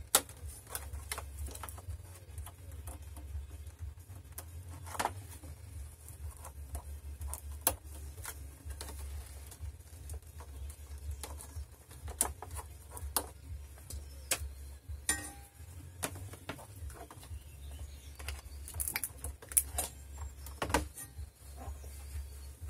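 Scattered clicks, taps and rustles of hands handling cables, connectors and a power-supply brick on the opened plastic case of a point-of-sale touch-screen computer, over a steady low hum.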